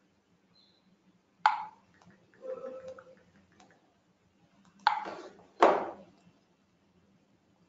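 A few short, non-word sounds from a person at a call microphone, the line dropping to near silence between them: three abrupt ones that fade quickly and a softer one in between.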